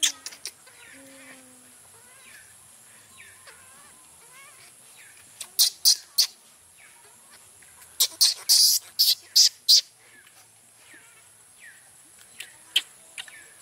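Baby macaque giving short, shrill angry screams in bouts: one at the start, three about five and a half seconds in, a quick run of about six around eight to ten seconds, and two more near the end, with faint whimpering between them.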